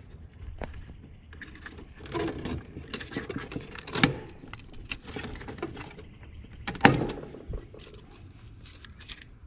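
Hands working an old heat pump defrost circuit board loose from its control panel: rustling wires and light plastic and metal clicks, with two louder sharp clicks, about four and seven seconds in.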